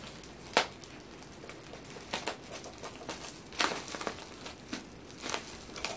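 A package being opened by hand: faint rustling of packaging with about four short, sharp crackles spread through it.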